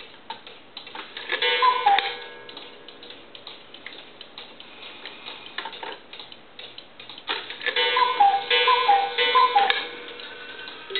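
One-day cuckoo clock ticking while its hands are turned by hand. Its bellows-pipe two-note cuckoo call sounds once about two seconds in and three times between about eight and ten seconds in.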